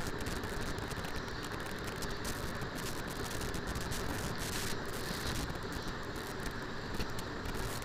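Capsicum and onion pieces sizzling in oil in a nonstick kadai, a steady frying hiss, while a spatula stirs and scrapes them around the pan.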